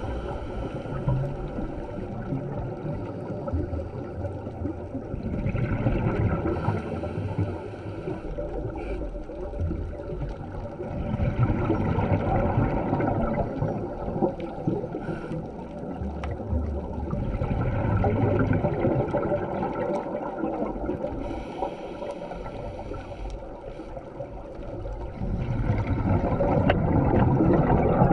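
Scuba regulator breathing heard underwater through a camera housing: a slow cycle of hissing inhales and gurgling bubble exhalations, swelling about every six seconds.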